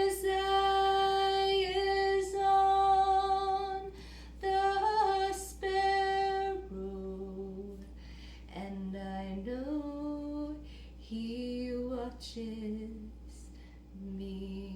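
A woman singing unaccompanied, holding long high notes for the first six seconds or so, then moving to a lower, quieter line of shorter notes.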